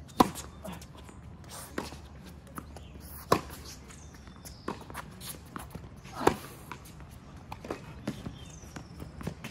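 Tennis rally on a hard court: three loud, sharp racket-on-ball hits about three seconds apart, with fainter ball bounces and far-court hits between them.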